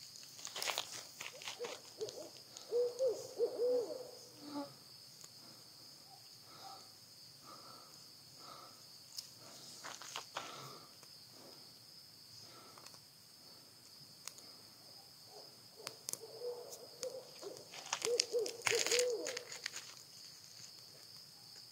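An owl hooting, a series of several low hoots a few seconds in and another series near the end, over scattered small crackles and snaps from kindling catching fire.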